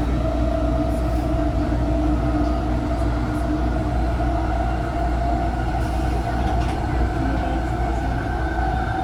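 A rail vehicle running steadily: a constant low rumble with a steady, held whine over it.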